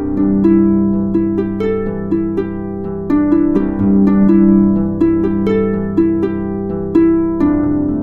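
Background music: a slow melody of plucked string notes, each struck and fading, over held low notes.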